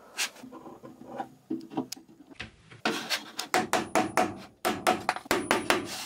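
Hammer tapping a freshly glued plywood strip into place against a plywood cabinet wall: after some quieter handling and rubbing, a rapid run of sharp wooden knocks starts about halfway through, roughly four a second.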